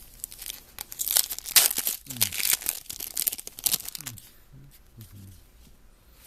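A trading-card pack wrapper being torn open and crinkled by hand, a burst of crackling that runs for about three seconds and then dies down.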